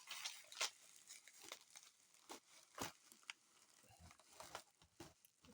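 Faint, intermittent crinkling and rustling of an auction bag being handled, with a few small clicks and knocks scattered through.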